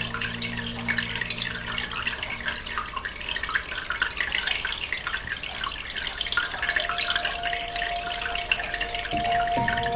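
Aquarium water bubbling steadily: a dense stream of small air bubbles breaking at the surface. Soft held music notes fade out in the first couple of seconds, and a new held note comes in about two-thirds of the way through.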